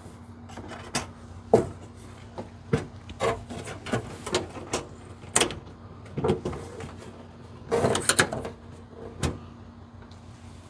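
Irregular clicks, taps and knocks of small parts being handled inside a vehicle's liftgate door, with a quick cluster of clicks about eight seconds in.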